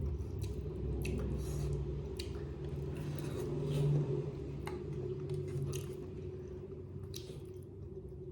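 Close-miked chewing and wet mouth sounds of someone eating chicken curry with rice, with scattered short clicks and smacks. A steady low hum runs underneath.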